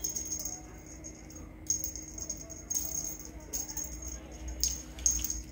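Small bell or rattle jingling in a string of short shaken bursts, with a high ringing note.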